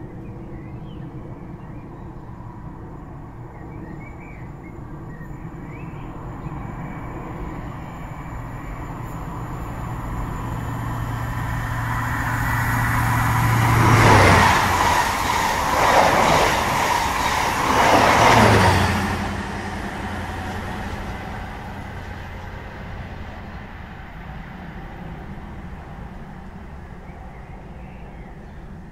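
A train passing by: a rumble that builds, comes to a peak in three loud surges about halfway through, then dies away.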